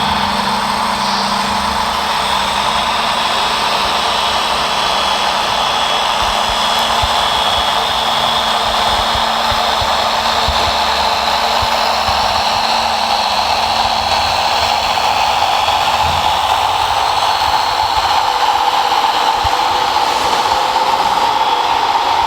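Steady whine of a radio-controlled construction model's electric motors and hydraulic pump running, with a lower hum that cuts off about 16 seconds in.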